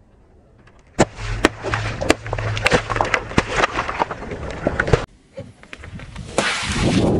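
Car tyre rolling over a row of small plastic barrel-shaped juice bottles: a dense run of sharp cracks and pops as the bottles crush and burst, over a low rumble of the rolling tyre. Near the end, after a short pause, a swelling rush of noise.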